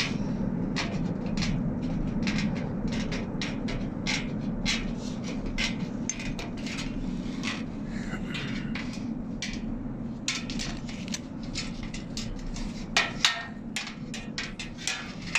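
Irregular sharp taps and knocks of hammering on sheet-metal standing-seam roofing, with two louder knocks near the end, over a steady low background rumble.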